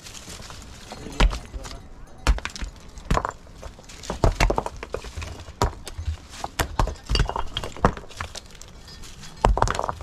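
Stones knocking and clattering against other stones as rocks are lifted from a dry-stone wall and tossed onto a rubble pile: a dozen or so sharp knocks at irregular intervals.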